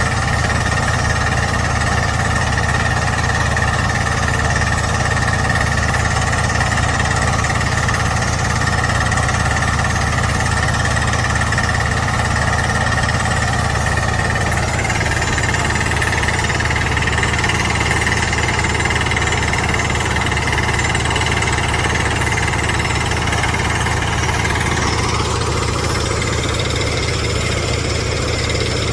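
Kaishan KY120 rock drilling rig hammering steadily and rapidly as it drills rock, with the rig's engine running underneath. Near the end a tone rises in pitch as the machine changes speed.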